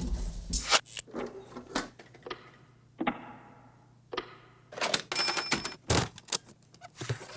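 Edited office sound effects: a string of sharp clicks and knocks, two hits that ring out and fade over about a second, then a quick run of clicks with a brief bright metallic ringing about five seconds in.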